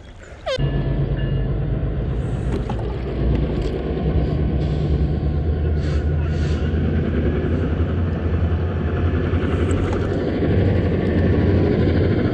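Steady low rumble of wind and rushing water on the microphone of a camera mounted on a moving single scull, starting abruptly about half a second in.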